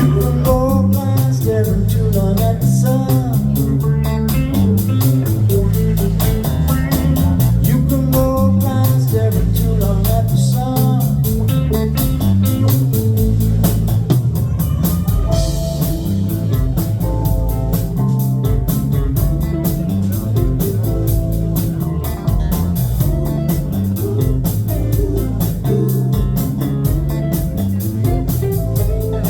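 A live band playing: electric bass, drum kit, guitar and keyboards, with a busy bass line and a steady drum beat under a melodic line.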